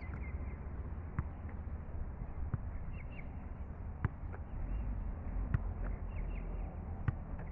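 Soccer balls being kicked and caught: five sharp thumps about a second and a half apart, over a steady low rumble that grows louder about halfway through.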